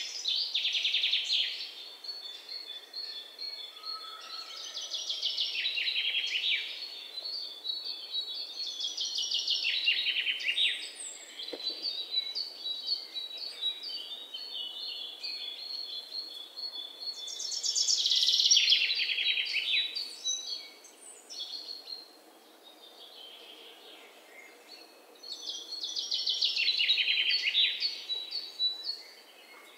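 Birds singing: bursts of rapid, high trills that come back every several seconds, with softer chirps between them over a faint hiss.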